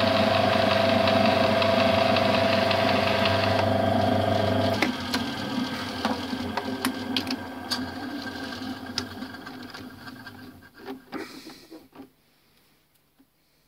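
Small metal lathe running, its gear train giving a steady whine over a low hum. About five seconds in the whine stops and the sound fades away over several seconds with scattered clicks and light rattles, ending in a few metal knocks.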